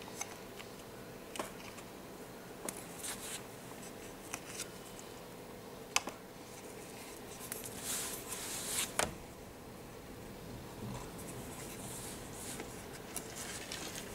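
Light clicks and taps of small plastic model-kit parts being handled and set down on card over a cutting mat, with soft scratchy rustling of hands and parts on the card now and then. A faint steady hum runs underneath.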